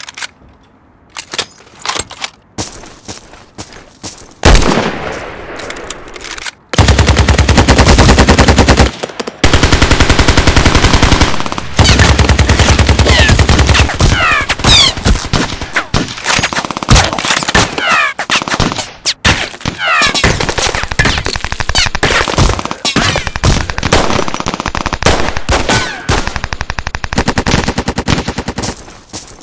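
Dubbed gunfire sound effects: scattered single shots, one loud blast about four and a half seconds in, then long bursts of rapid machine-gun fire and mixed shots, with brief whistling sweeps among them. It eases off near the end.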